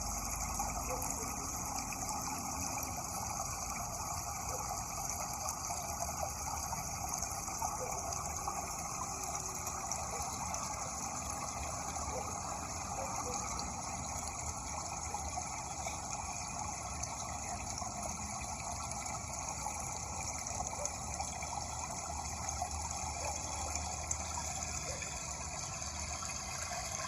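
Running water, a steady unbroken rush with faint splashes.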